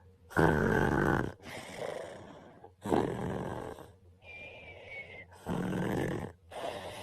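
A man snoring in his sleep: three loud snores about every two and a half seconds, with softer breaths between them.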